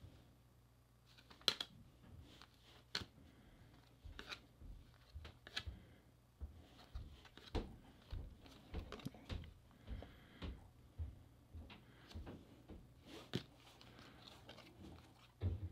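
Baseball trading cards being flipped through by hand one at a time: faint, irregular clicks and slides of card stock.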